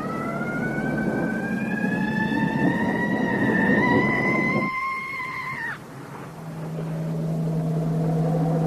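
A long, pitched wailing cry from a Halloween sound-effects recording, rising slowly in pitch for about six seconds, then breaking off with a sudden downward slide. A low steady hum takes over near the end.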